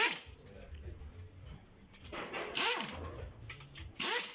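Dog barking three times, the barks a second or two apart.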